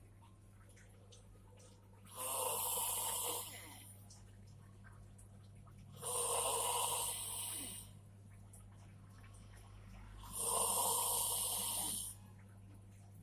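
A sleeping person snoring loudly: three long, raspy snores about four seconds apart, over a faint steady low hum.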